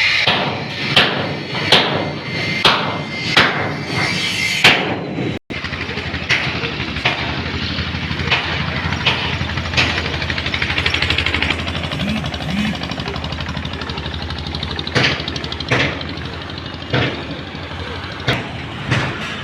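A motor running steadily with a low hum, with repeated sharp knocks about every three-quarters of a second in the first few seconds and again near the end.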